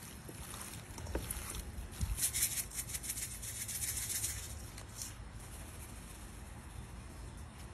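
A seasoning shaker being shaken over raw chicken wings in a stainless steel bowl: a fast, gritty rattle of granules from about one and a half to four and a half seconds in, with a shorter shake about five seconds in. Before it, soft handling noise as the raw wings are moved about in the bowl.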